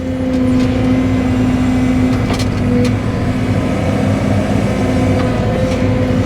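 Cat 313 excavator running steadily, its engine and hydraulics giving a continuous hum with a held tone. A faint knock sounds a little over two seconds in.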